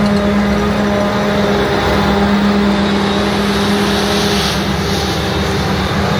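Forage harvester running steadily under load while chopping rye, with a constant loud hum and higher machine whine.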